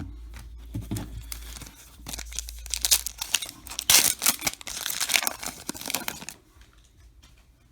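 A trading-card pack's foil wrapper being torn open and crinkled: a run of crackling rips, strongest from about two seconds in, that stops about six seconds in.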